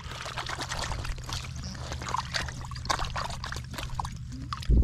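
Water trickling and splashing with scattered small clicks and knocks, over a steady low hum; a thud near the end.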